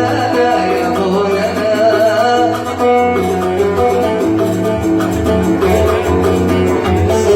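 Oud playing an instrumental passage of Yemeni Sanaani music, the melody plucked note by note over lower strings.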